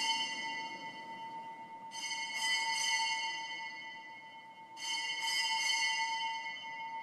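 Small altar bells (Sanctus bells) rung at the elevation of the consecrated host. Each peal is a quick cluster of bright strokes that rings on; new peals come about two seconds in and about five seconds in, with the ringing from a peal just before carrying on at the start.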